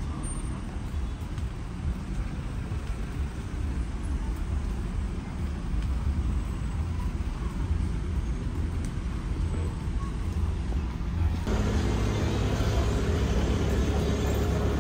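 Steady low rumble of street noise, likely road traffic. About three quarters of the way through, music with steady bass notes comes in over it.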